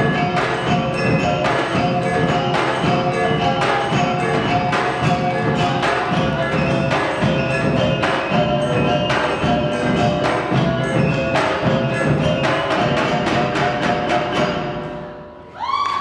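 Minangkabau traditional dance music: ringing, mallet-struck melodic percussion over a steady drum beat. The music fades out over the last second or so, and a shout breaks in right at the end.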